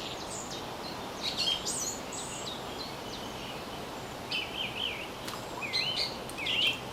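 Small songbirds singing in short, quick phrases of high chirps and warbles, over a steady outdoor hiss.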